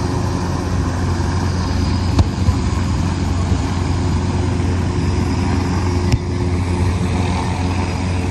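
Several military helicopters flying low, their engines and rotors making a steady drone.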